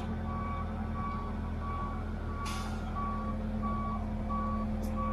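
A truck's backup alarm beeping steadily about one and a half times a second over a diesel engine running, likely a ready-mix concrete truck backing in to the pump's hopper. A short hiss of air comes about two and a half seconds in.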